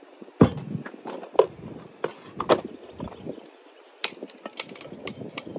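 Plastic camping kit being handled and set down on a wooden table: a string of sharp knocks and clicks, the loudest about half a second in, with a quicker cluster of clicks near the end.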